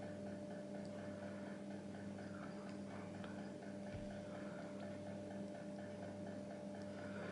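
Steady electrical hum with faint, fast, evenly spaced ticking over it: room tone while the fly is handled silently.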